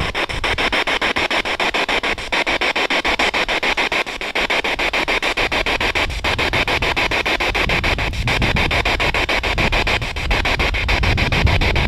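Ghost box (spirit box) sweeping through radio stations: a steady hiss of radio static chopped by rapid, even clicks several times a second.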